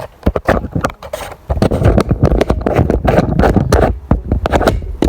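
Handling noise from a sneaker being turned over and rubbed close to the microphone: scrapes, rustles and knocks, heavier and continuous from about a second and a half in.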